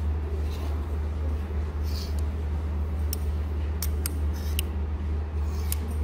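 Clothes hangers sliding along a rack and clicking against each other as garments are pushed aside: soft scrapes, then several sharp clicks in the second half. A steady low hum runs underneath.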